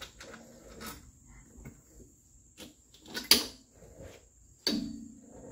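Scattered metal clinks and clanks of a wrench and shock-mount hardware while a front shock absorber is unbolted and pulled free. A sharp clank about three seconds in is the loudest, and another near the end rings on briefly.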